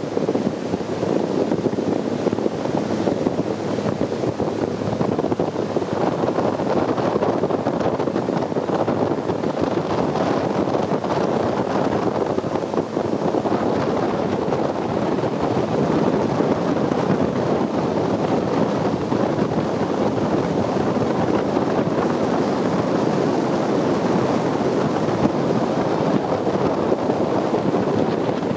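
Long-tail boat under way: its engine runs steadily, mixed with water rushing past the hull and wind buffeting the microphone.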